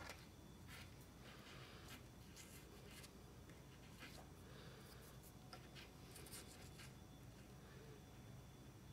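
Faint scraping of a single-edge razor blade shaving soft, still-tacky filler, a series of short scrapes about a second apart.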